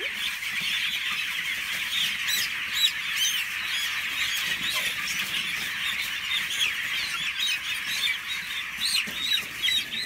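A large flock of young chickens in a crowded pen peeping all at once: a dense, continuous chorus of short, high chirps.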